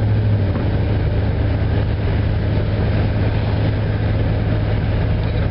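Inside a moving car's cabin: a steady low engine drone under the hiss of tyres on rain-soaked pavement.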